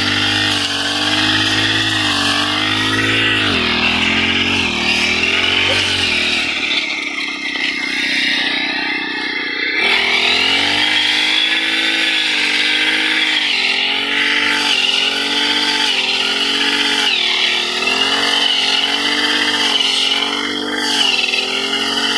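Small engine of a self-propelled grass-cutting machine running. Its speed repeatedly sags and picks back up, with a lower, quieter stretch in the middle.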